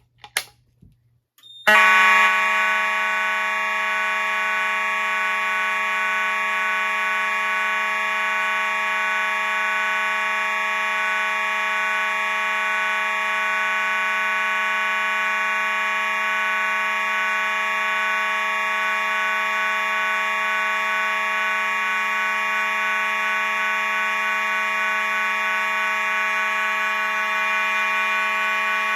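A fire alarm pull station is pulled with a short clack, and about two seconds in fire alarm horns start sounding, a loud steady buzzing tone with many overtones. The horns sound without pause because both fire alarm control panels are set to continuous signalling rather than a temporal code.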